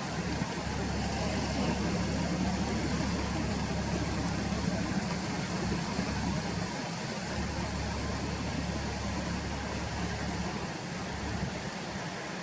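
Steady low background rumble of distant engine noise, like road traffic, without a break.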